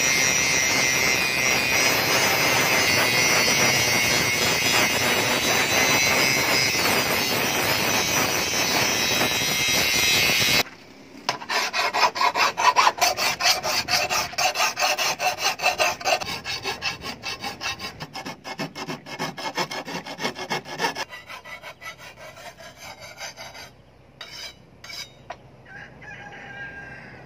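A DCA angle grinder running with its disc grinding the steel of a billhook blade, a steady high whine that cuts off suddenly about ten seconds in. A hand file then rasps along the blade in quick, regular strokes for about ten seconds, fading to faint scrapes and a few clicks near the end.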